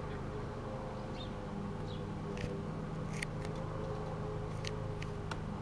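Robinson R22 helicopter passing high overhead: a steady, distant drone of its engine and rotor, with a few faint short ticks over it.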